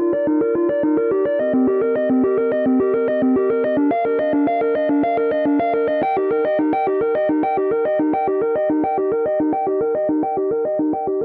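Electronic alarm tone: a synthesized melody of short keyboard-like notes played in a fast, evenly paced repeating pattern.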